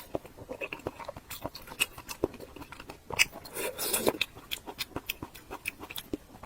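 Close-miked chewing and biting of food, a run of irregular short mouth clicks.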